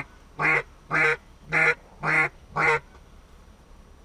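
A series of six loud duck quacks, evenly spaced about two a second, each short and nasal.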